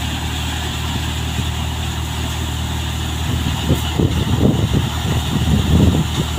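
Tractor-driven cutter thresher running steadily with a constant low hum while dried crop plants are fed into it. Uneven low thumping joins in from about three seconds in.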